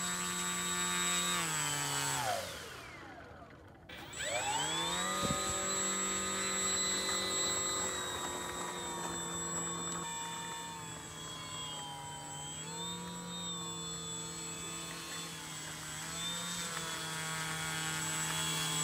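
Brushless electric motor and propeller of an RC model Cessna 152 taxiing: a steady whine that winds down about two seconds in and nearly stops, then spools back up about four seconds in and rises and dips in pitch with the throttle.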